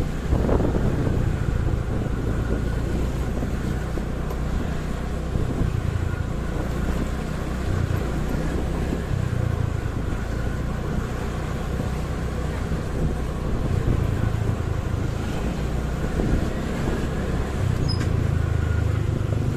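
Steady city road-traffic noise with a low engine hum, heard from a moving motorcycle.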